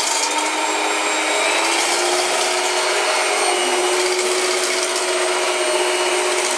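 Power Plus electric stand mixer running steadily at speed, its beaters creaming butter and sugar in a stainless steel bowl: a steady motor whine.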